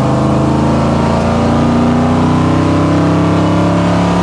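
Supercharged 350 small-block Chevy V8 of a 1975 Chevrolet C20 pickup under way, heard from inside the cab. The engine note rises gently over the first two seconds, then holds steady.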